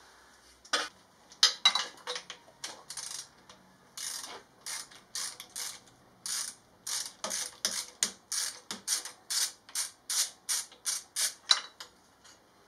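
Ratchet wrench clicking through a run of short back-strokes, about two a second and quickening in the second half, as an exhaust bolt is undone.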